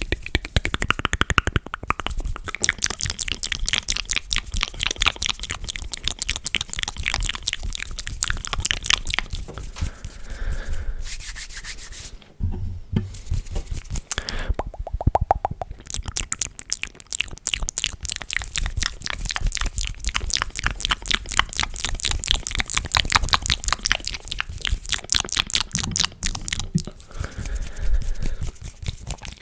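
Close-miked ASMR mouth sounds: long runs of rapid wet clicks and smacks, broken by a couple of brief pauses about halfway through.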